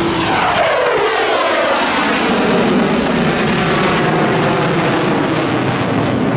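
Eurofighter Typhoon's twin EJ200 turbofans in a loud, low flypast. The engine pitch falls sharply in the first couple of seconds as the jet goes by, then gives way to a steady rushing roar.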